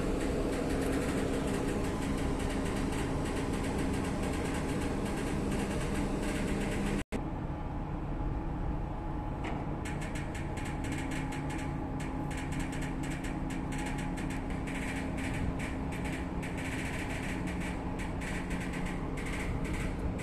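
Steady machinery hum with a low steady tone from a RORO ship's stern-ramp gear, its hydraulics and winches folding the ramp closed. The sound cuts out for an instant about seven seconds in, and after that light rapid clicking runs over the hum.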